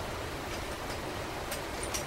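Steady workshop background hiss with a couple of faint, light ticks near the end as small pump parts are handled.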